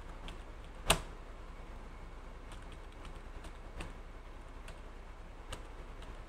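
Computer keyboard keys pressed one at a time, slow and irregular, with one louder stroke about a second in, over a faint steady low hum.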